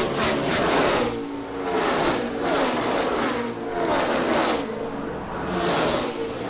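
NASCAR Sprint Cup Car of Tomorrow stock cars' V8 engines at full throttle as several cars pass one after another. Each engine note drops in pitch as its car goes by.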